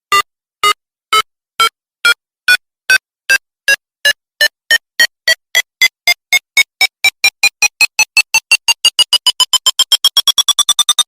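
Electronic beeps that speed up and rise in pitch, from about two a second to a rapid run that nearly merges into one tone near the end: a bomb-timer countdown sound effect leading into an explosion.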